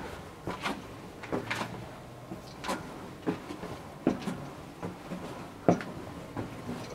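Footsteps on narrow stone stairs: irregular, sharp steps, about one or two a second.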